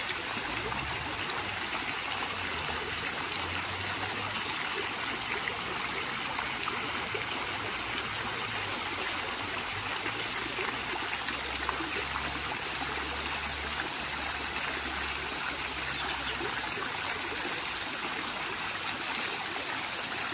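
Steady rain, an even unbroken hiss, with faint low notes shifting underneath.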